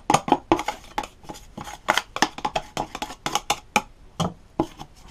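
A scraper scraping caked grass out of the inside of a lawn mower's plastic drive-belt cover: a quick, irregular run of short scrapes and clicks.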